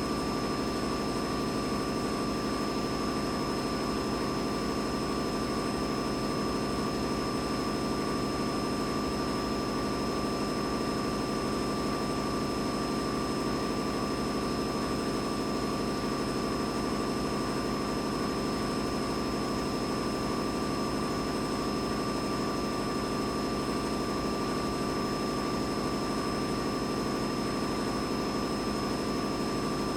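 Boiler room ambience: a steady, unchanging machinery drone with two constant high whines running over it.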